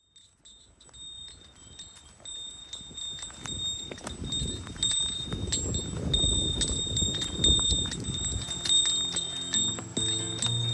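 Intro music fading in from silence: a quick ticking, clock-like beat with chime-like high tones and a low swell, and bass notes starting near the end.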